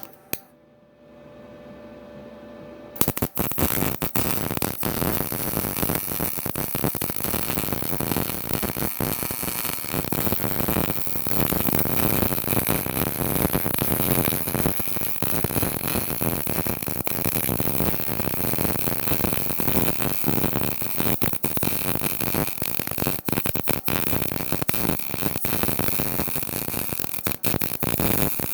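Electric arc welding: the arc strikes suddenly about three seconds in and runs a bead with a steady crackling sizzle.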